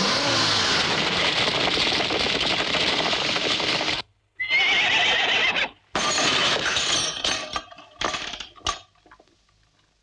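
A loud, dense vehicle din as a truck rushes past, cutting off abruptly after about four seconds. Then a horse whinnies for about a second, followed by a run of sharp knocks and crashes that die away.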